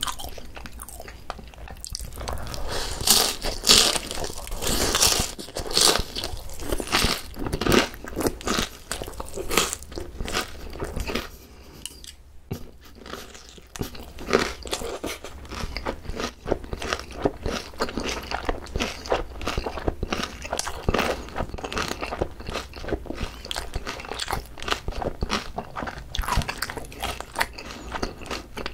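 Close-miked eating of crispy boneless Korean fried chicken with shredded raw green onion: loud crisp crunches and bites through the first ten seconds, a brief lull, then steadier crunchy chewing.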